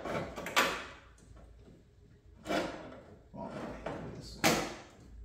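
Parts of a Porsche 944's pop-up headlight mechanism being worked loose by hand: a few short scraping and knocking sounds with quiet gaps between, the loudest about four and a half seconds in.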